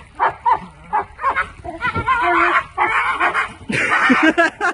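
A pit bull–type dog making its funny duck-like noises: a few short calls, then three longer ones in quick succession, the last the loudest.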